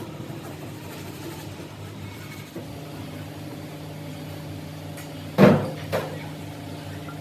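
Steady machine hum, with one loud metallic clank a little past five seconds in and a lighter knock just after.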